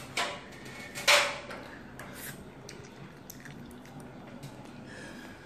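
Eating noises as a child eats cup instant noodles with a fork: two short, loud sucking sounds about a second apart near the start, then faint clicks of the fork in the noodle cup.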